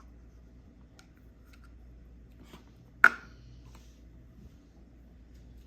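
Light taps and clicks of plastic Play-Doh toy tools being handled, with one sharp knock about three seconds in.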